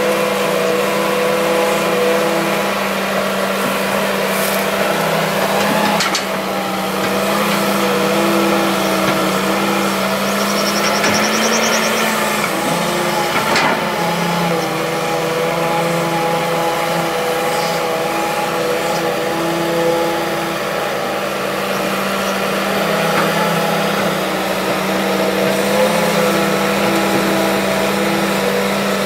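Hitachi EX200-3 hydraulic excavator's diesel engine running steadily under working load while digging soil, its pitch shifting slightly as the hydraulics work, with a couple of sharp knocks.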